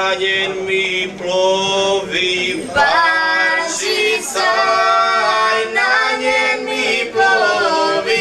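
Unaccompanied folk singing by three young voices, a girl and two young men, in the Istrian two-part style: held notes about a second long, sung together, with short breaks between phrases.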